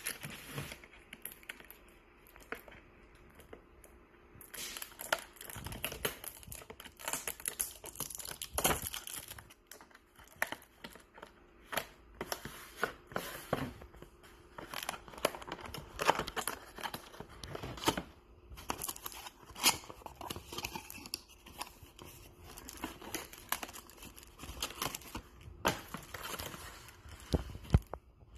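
Packaging being unwrapped: irregular crinkling and tearing with many sharp clicks and rustles as a kitchen slicer is taken out of its packing.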